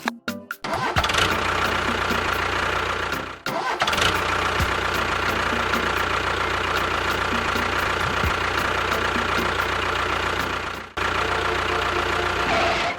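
A motor running steadily, with a constant whine over a low hum. It cuts out briefly twice and picks up again each time.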